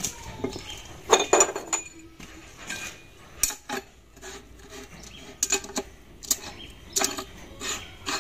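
Steel differential parts clinking and knocking as the carrier assembly, with its ring gear and tapered roller bearings, is seated into a truck's differential housing and a bearing cup or adjuster ring is fitted. The knocks are short and irregular, about ten in all.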